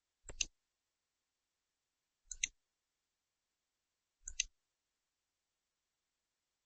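Computer mouse clicks: three separate clicks about two seconds apart, each a quick press-and-release double tick.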